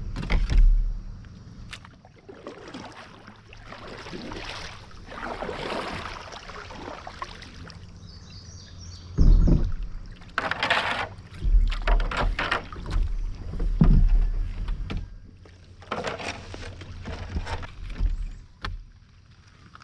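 Kayak paddling on a river: irregular paddle strokes swishing and splashing through the water, with several low knocks and thumps against the hull.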